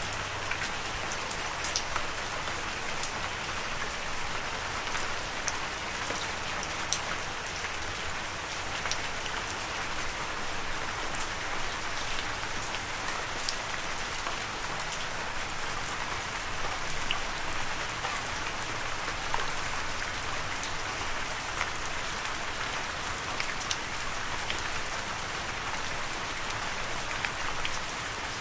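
Steady rain with many scattered sharp drop ticks over an even hiss, unchanging throughout.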